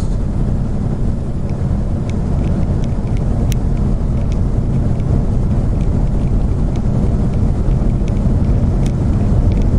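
Steady drone of a semi truck's engine and road noise heard inside the cab, with a few faint ticks scattered through it.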